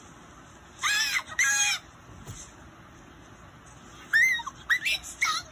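A child's voice making high-pitched, caw-like cries: two short ones about a second in, then a run of rapid, bending yelps from about four seconds in.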